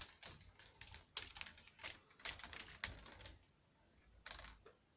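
A ball clattering and clicking down K'nex plastic track, with a quick run of rattles for about three seconds, then a pause and a short rattle near the end.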